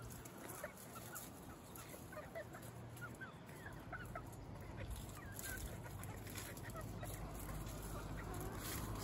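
A small flock of chickens, a rooster and hens, clucking softly as they feed, with many short rising chirps scattered throughout.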